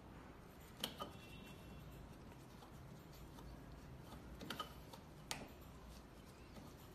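A few faint clicks over a quiet room: two about a second in, two more around four and a half seconds, and one shortly after. They come from hands tightening the screws that hold the laser handle's hose connector to the front of an ND YAG laser machine.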